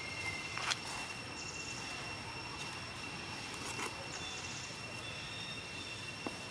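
Steady outdoor background with a constant high-pitched whine and a few faint rustles or steps.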